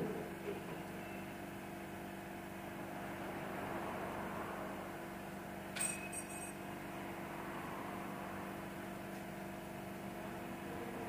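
2015 Dodge Charger's 3.6-litre V6 idling steadily while it has a misfire on cylinder 5. A single short metallic click comes about six seconds in.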